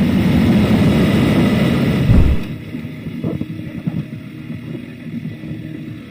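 Motorcycle riding with heavy wind noise on the rider's microphone. The wind noise drops off sharply about two seconds in, leaving a quieter running engine.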